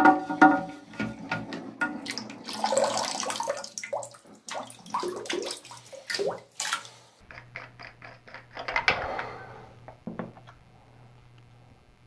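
Plastic toilet fill valve being twisted apart and lifted out of the tank: scattered clicks and knocks of the plastic parts, with water splashing and dripping back into the tank.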